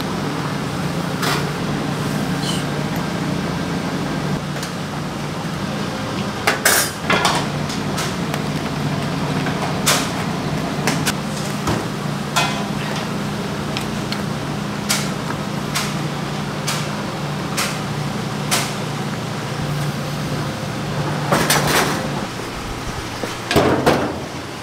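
Kitchen clatter: dishes and metal utensils knocking and clinking, with sharp knocks every few seconds over a steady low hum.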